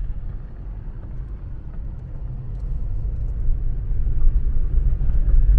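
Car driving slowly on a gravel road, heard from inside the cabin: a steady low rumble of tyres and engine that grows louder over the last couple of seconds.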